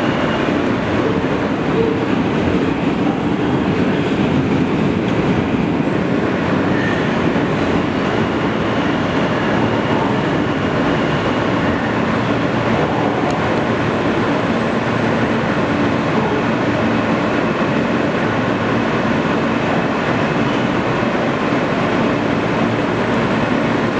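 An R160 subway car in motion, heard from inside the car: a steady, loud rumble and hiss of the wheels and running gear on the track.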